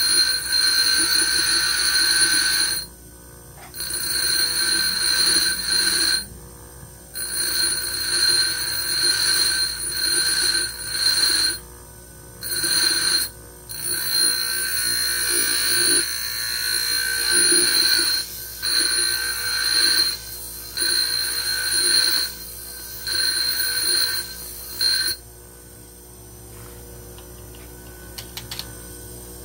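Bench grinder wheel grinding a small steel gaff-blade blank: a high ringing screech in about nine passes of one to four seconds, broken by short pauses as the blade is lifted off, the metal being ground down from a rough blank toward a semi-finished blade. The grinding stops a few seconds before the end, leaving only a low hum.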